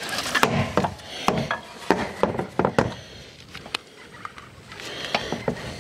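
Irregular sharp knocks and taps of tools and hands against corrugated steel wall cladding and an aluminium ladder, some with a brief metallic ring.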